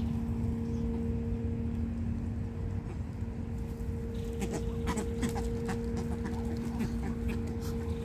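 Muscovy ducks and white ibises feeding close by, with a scatter of short clicks and brief soft calls from about halfway on, over a steady hum and low wind rumble.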